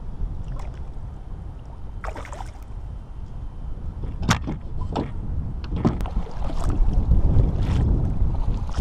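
Low wind rumble on the microphone aboard a fishing kayak, with about eight scattered sharp knocks and taps from handling on board; the rumble grows louder toward the end.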